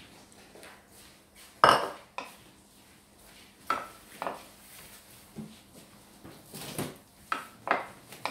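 A bowl set down on the counter with a sharp knock, followed by a wooden spatula knocking against a glass dish as a herb salad is tossed: a string of separate clicks spaced about half a second to a second apart.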